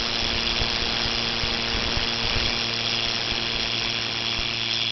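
Silicone-rubber model vocal folds vibrating in a stream of air, giving a steady buzzing tone, pitched near 155 Hz, over the hiss of the rushing air.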